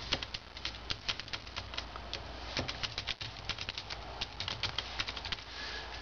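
Rapid clicking of fingers typing on a Think Outside Stowaway folding Bluetooth keyboard's laptop-style scissor-switch keys, in quick runs with a couple of brief pauses.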